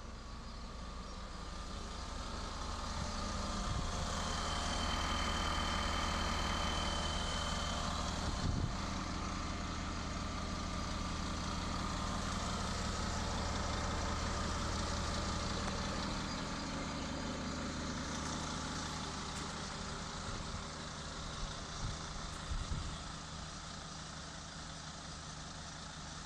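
2004 Mercedes Sprinter 616 CDI's 2.7-litre turbo diesel idling steadily. It grows louder for a while in the middle, then eases, with a few short knocks.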